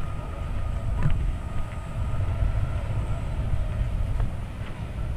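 Low, uneven rumble on a handheld GoPro's microphone while walking, with a faint steady high whine and a few light ticks.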